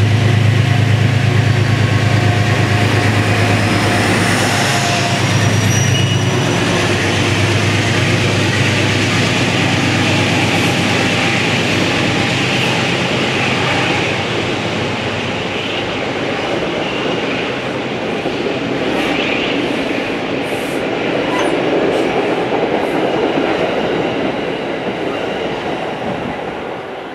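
Metro-North GE P32AC-DM diesel locomotive passing close with a steady low engine drone, then its coaches rolling by with wheel clicks. The sound fades as the train moves away.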